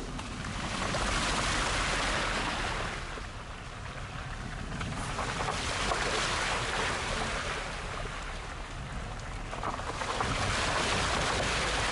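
Wind rushing over the microphone from a car driving with the window open, swelling and easing three times, over a steady low rumble of the car on a rough dirt road.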